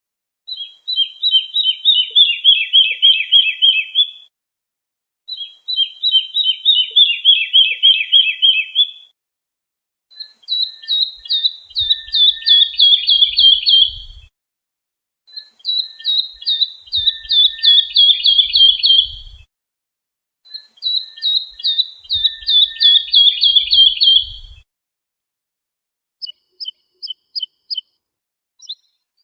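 Lark singing: five phrases of fast, repeated chirps, each about four seconds long with a pause of about a second between them, followed near the end by a sparser run of high thin notes.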